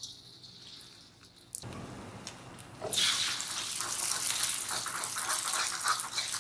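Beaten egg sizzling in hot oil in an iron wok, starting with a sudden onset about a second and a half in and turning into a loud, crackling sizzle from about three seconds in, as a metal ladle stirs the setting egg.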